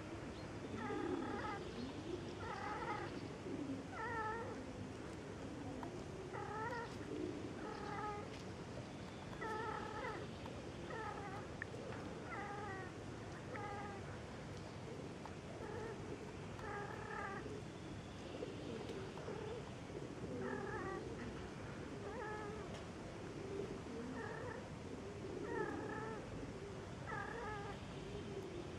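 Cats caterwauling during mating: low, wavering yowls run throughout, with short, higher calls repeated about once a second, often in pairs.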